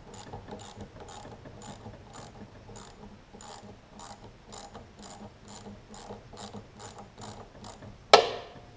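A 7mm socket ratchet clicking about twice a second as it backs a metal bolt out of a plastic carburetor float bowl on a Briggs & Stratton mower engine. Near the end, one loud sharp clack with a short ring.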